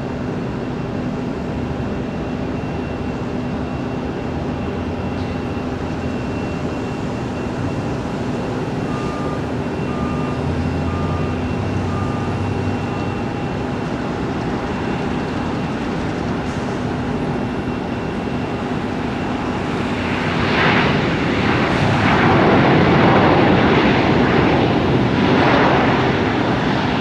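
Aircraft engines running with a steady hum and whine, swelling much louder about twenty seconds in and easing off again near the end.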